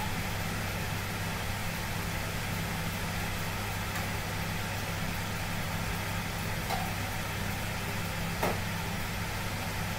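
Steady roar and hum of a commercial kitchen wok range and its extraction hood running, with a faint metal clink of the ladle near the end.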